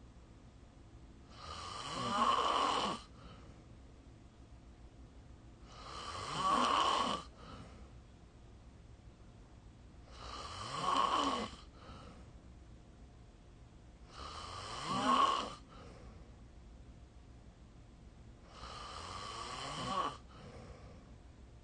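A person snoring: five loud snores about four seconds apart, each rising in pitch and loudness over a second and a half and cutting off sharply, with a faint short breath out after each.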